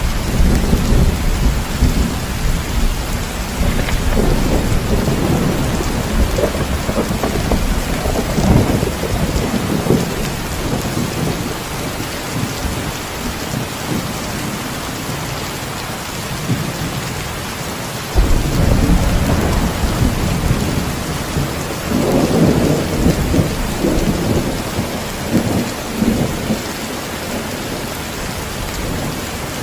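Heavy rain falling steadily, with thunder rumbling: a long roll at the start that dies away before halfway, then another that breaks in sharply past the halfway point and swells again a few seconds later.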